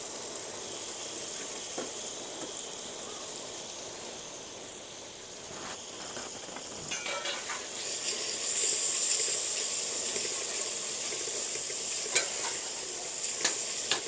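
Spiced liquid cooking in an aluminium pot over a small gas-cylinder burner, making a steady sizzling hiss that grows louder about eight seconds in. A few light clinks of a metal spoon against the pot come near the end.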